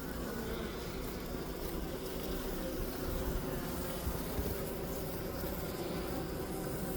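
Steady hum of many honeybees buzzing in flight around an open hive.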